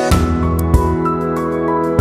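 Background music: sustained chords over a soft low beat, with a bright swell at the start.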